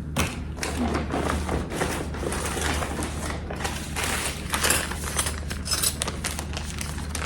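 Plastic packaging rustling and crinkling as items are handled, a dense stream of small crackles with no pauses, over a steady low hum.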